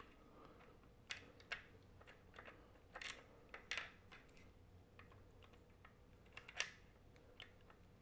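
Faint, irregular small clicks and taps of metal hex nuts and fingers against the metal saddle base plate as the nuts are placed and turned by hand on a telescope mount. The loudest click comes about two-thirds of the way through.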